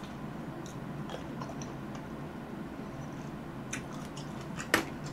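A person chewing fresh cherries close to the microphone: scattered faint mouth clicks as the fruit is bitten and chewed, with one sharper click near the end.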